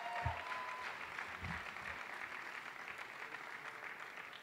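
Audience applauding, dying down gradually, with a held cheer from one voice in the first second.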